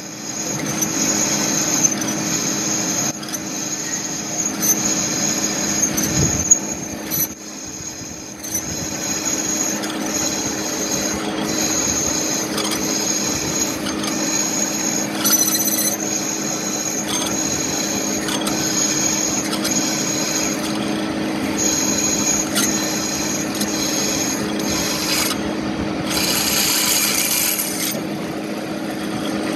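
Twist drill in a milling machine's spindle boring through a metal flange. The machine hums steadily under a high-pitched squeal from the bit cutting the metal, which comes and goes, with a brief hiss near the end.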